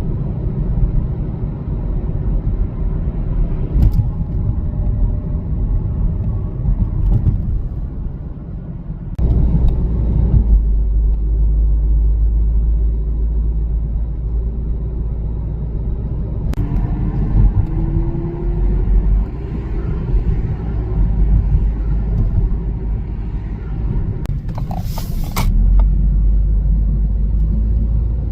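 Car driving: a steady, loud low rumble of road and engine noise, with a sudden shift in level about nine seconds in and again near the end.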